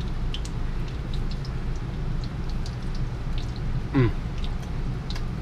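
Pieces of biscuit-dough donuts frying in hot oil, a faint scattered crackling and popping over a steady low hum. A brief falling vocal sound about four seconds in.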